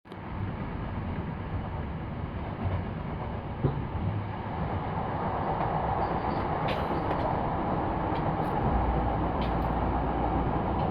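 Running noise of a Hankyu Kyoto Line train heard from inside the passenger car: a steady rumble that grows a little louder, with a few faint clicks.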